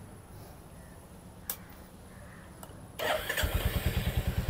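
A switch clicks once about a second and a half in. About three seconds in, the 2024 Royal Enfield Classic 350's 349 cc air-cooled, fuel-injected single-cylinder engine is started and settles straight into an idle with an even, rapid beat.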